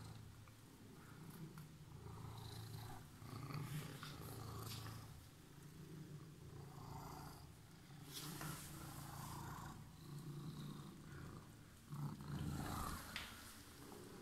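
Calico cat purring in repeated swells as it is stroked and rubs against a hand.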